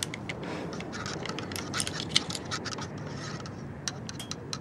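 Someone rummaging for a small object: a string of light clicks, scrapes and rustles over a low steady hum.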